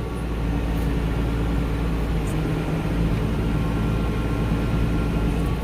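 Tractor engine running steadily, heard from inside the cab, picking up slightly about half a second in.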